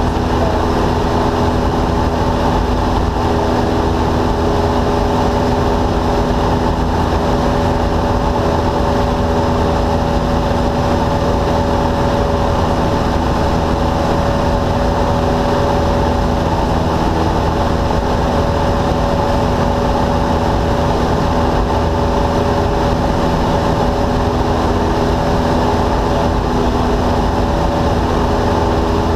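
Single-engine Cessna's piston engine and propeller running at a steady pitch in flight, heard from inside the cabin with a constant rush of airflow.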